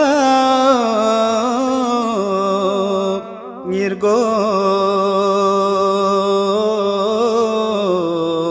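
A man's voice singing a Balti devotional qasida in long, wavering held notes, with a short break about three seconds in.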